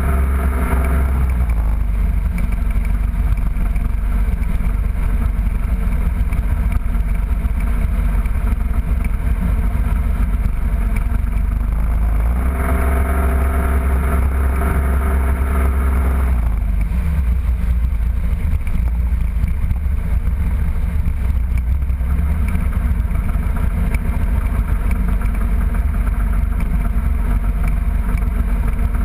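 A fishing boat's outboard motor running at speed, with heavy wind rumble on the microphone and water rushing past the hull. The engine note comes up louder for about four seconds, starting about 12 seconds in, then settles back.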